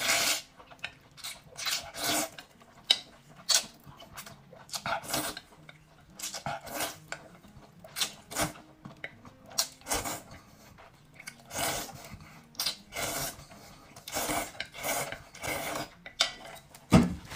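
Close-up slurping and chewing of wide cold noodles (liangpi) in chili sauce: repeated short, wet slurps and mouth noises at an irregular pace, with the odd clink of chopsticks against a steel bowl.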